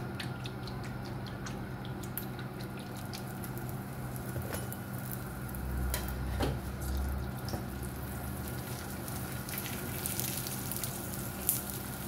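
Oil sizzling on a hot griddle (tawa) under a frying paratha, heard as a steady low hiss with scattered small crackles and pops. Around the middle a metal spatula works across the bread.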